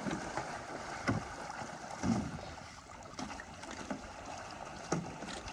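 Open-air riverbank ambience: an even hiss of wind and water, with a few faint knocks.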